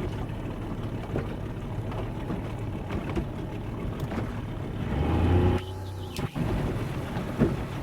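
Boat motor running as the boat travels. It swells briefly about five seconds in, then the sound drops out for a moment before resuming.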